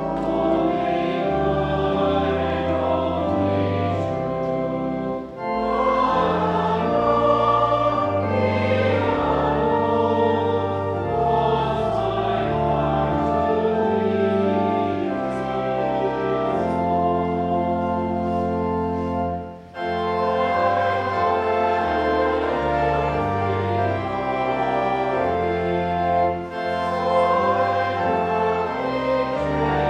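A choir singing a slow hymn in slow, held chords that echo in a church, pausing briefly between phrases three times, about five, twenty and twenty-six seconds in.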